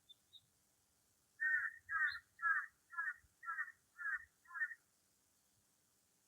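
An animal calls seven times in a quick, even series, about two calls a second, with a few faint high bird chirps around it.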